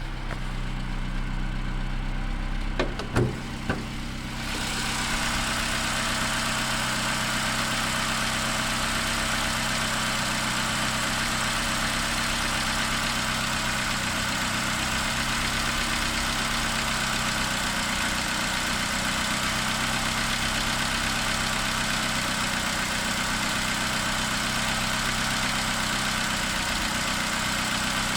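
Opel Corsa D's 1.2 Z12XEP four-cylinder petrol engine idling steadily soon after a cold start, with a tapping/clicking that the owner suspects is noisy tappets. There are a couple of sharp knocks about three seconds in, and about four seconds in the sound turns brighter and fuller.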